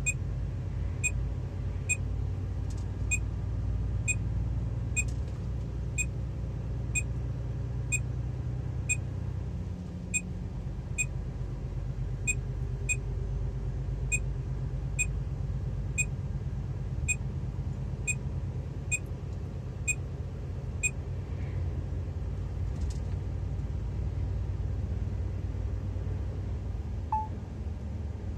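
Steady low drone of a truck's engine and road noise heard inside the cab. A short high electronic beep sounds about once a second through the first twenty-odd seconds, then stops.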